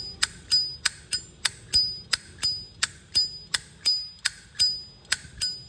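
Zippo lighter lid being flicked open and snapped shut over and over, a steady run of sharp metallic clinks, about three a second, each with a short high ring.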